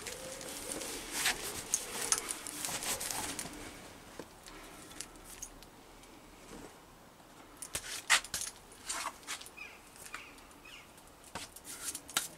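Cloth rag rustling as it wipes down a steel axle shaft, for about the first three and a half seconds. Then a few light metallic clicks and rattles, mostly about eight seconds in and near the end.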